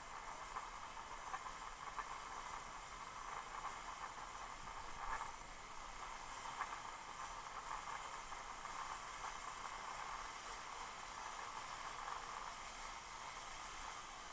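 Zip line trolley pulleys running along a long steel cable, a steady whirring hiss with faint ticks as riders slide in toward the landing platform.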